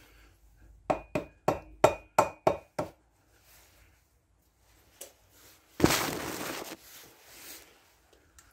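Rubber mallet tapping a Kawasaki Z1100 cylinder head down onto the barrels, seven quick knocks at about three a second, to seat it the last bit over the dowels and gasket. About six seconds in comes a brief rustling scrape.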